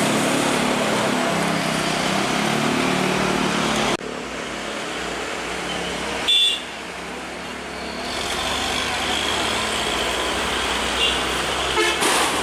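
Steady street traffic noise with a crowd of voices, and a short, loud, high tone about six seconds in.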